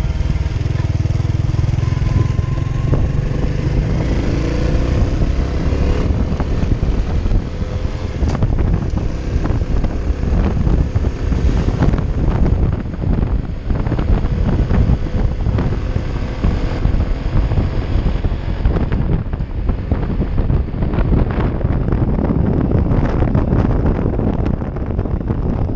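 Honda Innova 125's small single-cylinder engine running on the move, with heavy wind buffeting on the microphone.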